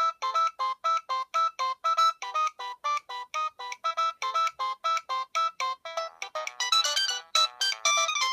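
A Nokia 3510 ringtone played through the loudspeaker of a Nokia 7100 Supernova phone: a synthesized tune of short, clipped notes, about four a second, bouncing between a few pitches. About six seconds in it moves into a busier passage with several notes sounding together.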